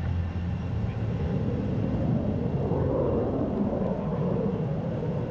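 FG-1D Corsair warbird and F/A-18F Super Hornet jet flying by together in formation: a steady distant engine rumble that grows a little fuller from about two seconds in.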